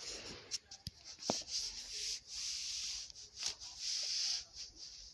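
Rubbing and rustling noises with scattered sharp clicks, including two longer scrapes of about a second each in the middle.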